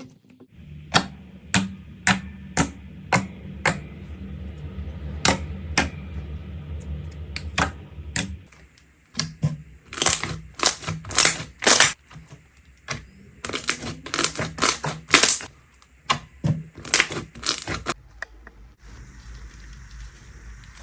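Slime being squeezed and poked, making sharp pops and clicks. They come about two a second over a low steady hum at first, then in dense crackling clusters.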